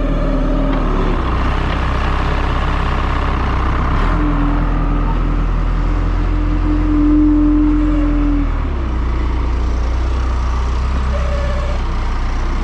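Engine of heavy farm machinery running steadily, with a whine that rises and swells from about four seconds in and drops away about eight and a half seconds in.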